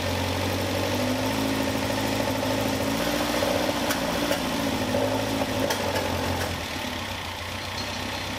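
Caterham Super Seven's twin-carburettor engine running at low revs, with a few sharp pops about three to four seconds in. It has just had its float level, ignition timing, idle mixture and carburettor sync reset, and the popping misfire it is being tuned for is not cured.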